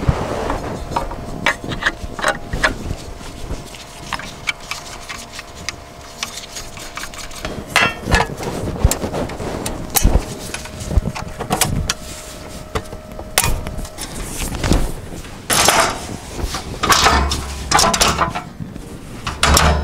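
Irregular knocks, clunks and rattles of a riding mower's air cleaner, engine shroud and hood being fitted back on by hand. Scraping and rustling follow in the last few seconds as the hood is lowered and pressed into place.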